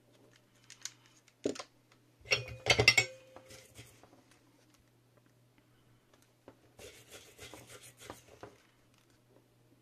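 Small tools and parts handled on a workbench: a few clicks, then a louder clatter of sharp metal-and-plastic clinks with a brief ring about two to three seconds in, and scraping and rubbing near the end, over a faint steady hum.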